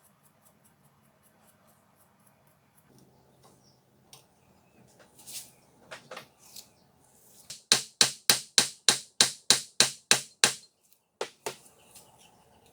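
Hammer tapping in a steady rhythm: about ten sharp strikes, roughly three a second, starting about eight seconds in, then two more after a short pause. Faint small ticks and scrapes come before them.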